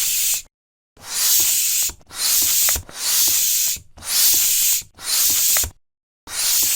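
Air pump inflating a wheel tyre, worked in strokes: a hiss of air with each stroke, about one stroke a second, with short pauses between.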